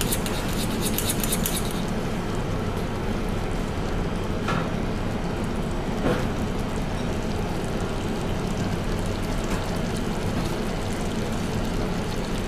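Sugar syrup boiling hard in a stainless steel saucepan on an induction hob, a steady bubbling hiss, as it cooks toward 121 °C for Italian meringue. Two light knocks come near the middle.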